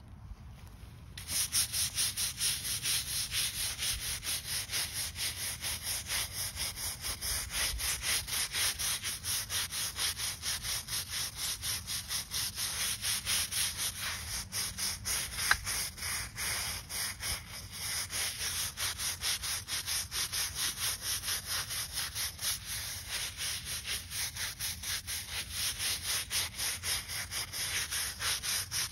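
Stiff-bristled hand scrub brush scrubbing the wet face of a stone headstone, in quick back-and-forth strokes of about three or four a second that start about a second in. One sharp click about halfway through.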